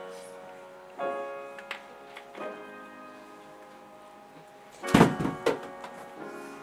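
Upright piano playing slow held chords, a new chord struck about every second and a half. About five seconds in there is a loud, short cluster of thumps.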